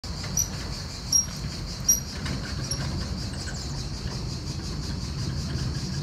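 Automatic sliding gate's electric drive running with a steady low hum, with four short high-pitched beeps in the first three seconds. A steady high chorus of insects runs underneath.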